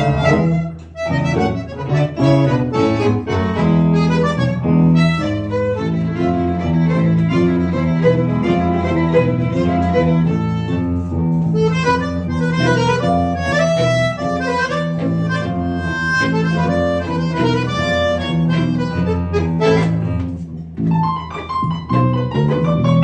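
Accordion playing a milonga: a busy melody line over held bass notes, pausing briefly about a second in and again near the end.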